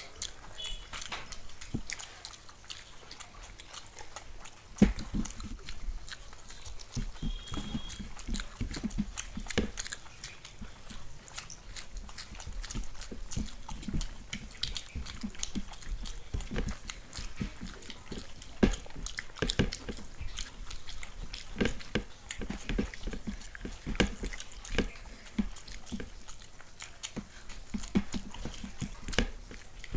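Close-up chewing and wet mouth smacking of people eating fried rice and chilli chicken, with many small clicks throughout.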